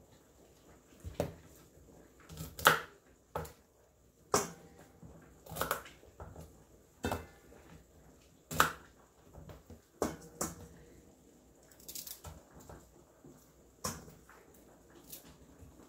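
Kitchen knife cutting through crisp celery stalks on a wooden cutting board: about a dozen sharp crunches and knocks of the blade against the board, irregularly spaced.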